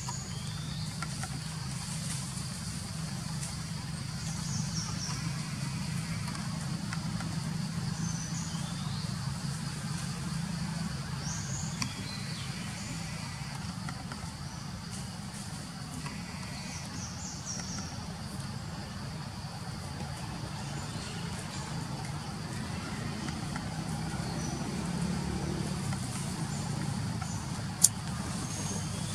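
Outdoor forest ambience: a steady low hum throughout, a steady high insect-like drone, and scattered short high chirps. One sharp click sounds near the end.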